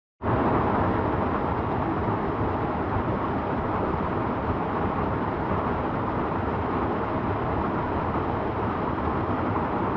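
Waterfall on a mountain stream: a steady, even rush of falling and splashing water that cuts in sharply just after the start.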